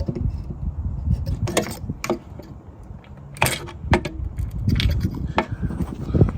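Light clicks and clatter of small metal tools and ignition parts being handled in a car's engine bay, a handful of short knocks over a steady low rumble.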